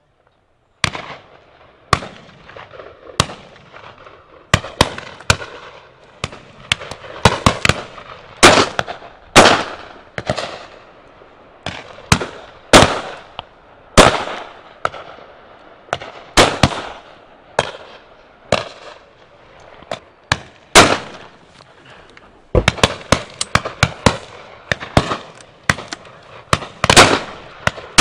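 Shotguns firing at driven pheasants: dozens of shots in irregular succession, some close and loud, others fainter, each followed by a short echo. The shooting starts about a second in and pauses briefly about three-quarters of the way through.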